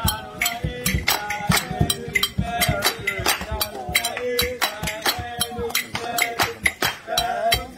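Music: a voice singing over a quick, steady beat of sharp percussion strikes.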